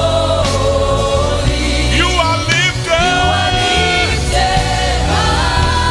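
A woman singing the lead of a live gospel worship song, holding long notes over a band with a steady bass.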